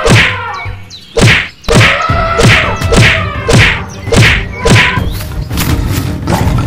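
Cartoon fight hit sound effects: a series of about eight sharp whacks, each with a quick downward sweep, roughly every half second, then stopping about five seconds in.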